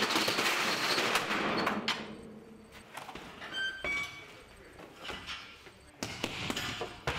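Metal roller shutter being hauled up, a loud rattling clatter for about two seconds. Quieter knocks and a few short ringing tones follow, with another burst of noise about six seconds in.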